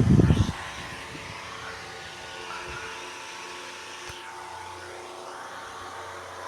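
A 90 W industrial fan running with a steady whir of motor and rushing air, with faint steady hum tones. A burst of loud low rumbling stops about half a second in.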